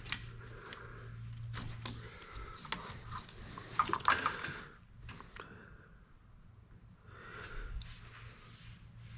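Scattered light clicks, taps and rustling from hand tools and small engine parts being handled, with a brief cluster of louder clicks about four seconds in, over a faint steady hum.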